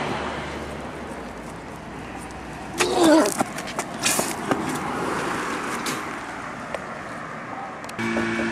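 Steady street traffic noise with a short vocal sound about three seconds in and a few sharp knocks after it; near the end a steady hum with a fixed pitch comes in abruptly.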